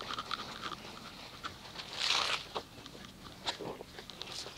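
Wet microfibre wash mitt wiping and squelching over soapy car paint, with a louder wet swish about two seconds in.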